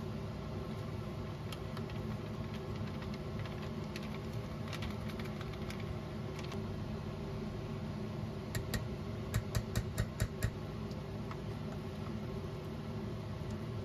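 A steady machine hum, with a quick run of about seven sharp taps or clicks a little past the middle.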